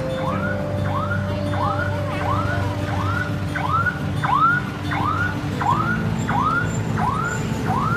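Emergency vehicle siren sounding in quick rising whoops, about two a second, over the rumble of street traffic.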